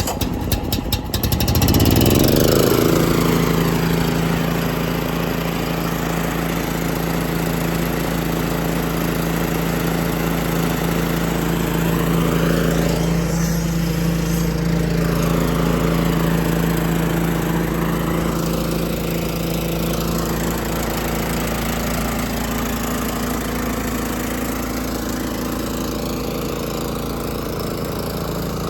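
The service truck's air compressor starting up: it catches in the first second, its pitch rising for a second or two, then it settles into a steady run.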